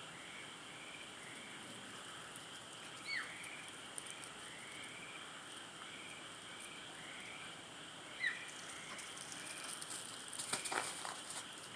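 Two high calls of a sika deer, each a short whistle sliding steeply down in pitch, about five seconds apart, the second louder. A steady chorus of chirping insects runs underneath, and a few knocks come near the end.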